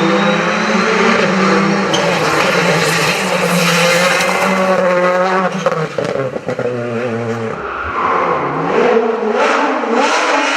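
Rally car engine at high revs under hard acceleration, dropping off with a few sharp cracks around six seconds in, then revving up again with rising pitch.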